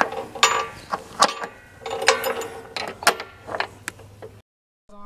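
Metal chain and hook rattling and clinking as a boat trailer's safety chain hook is fastened onto the bow eye: a quick series of sharp metallic clanks with brief ringing, cutting off suddenly about four seconds in.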